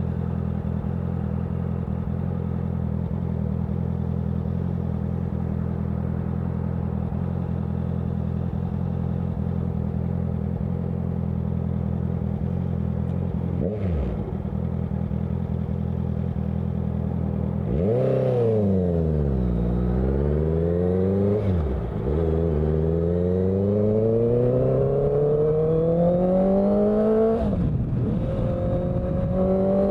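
Honda CBR650F's inline-four engine breathing through a CS Racing aftermarket exhaust. It holds a steady note for about thirteen seconds, then from about eighteen seconds in it pulls up through the gears: the pitch climbs, drops sharply at each upshift twice, and climbs again.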